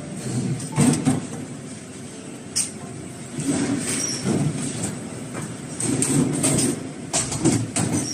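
Machinery running with an irregular clatter of knocks and clanks.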